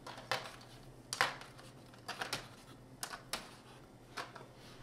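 Eggs being picked out of a carton and set one by one into a small plastic container: a series of sharp, irregular clicks of eggshell against plastic.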